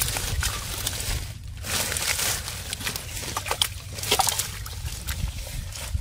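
Hands and feet working through shallow muddy water, sloshing and squelching, with scattered small splashes and clicks.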